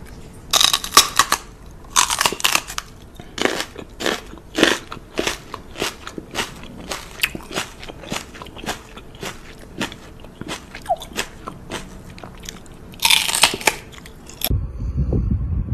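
A man kissing and nuzzling a pit bull-type dog's head: a long irregular string of sharp wet lip smacks and mouth clicks, some in quick clusters, with a dense run of them near the end. A low rumble takes over in the last second.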